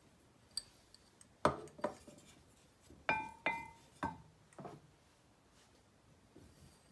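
Wooden spoon knocking against a glass measuring jug while stirring a dry spice blend: about seven knocks, two of them near the middle ringing out briefly with a clear glassy tone.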